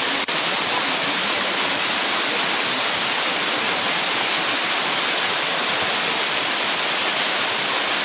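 Waterfall's rushing water: a loud, steady hiss, strongest in the upper range. A brief click about a quarter second in.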